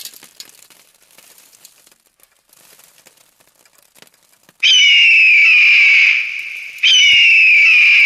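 Faint crackling, then two loud, high whistles about two seconds apart. Each starts with a falling glide and then holds its pitch for about two seconds.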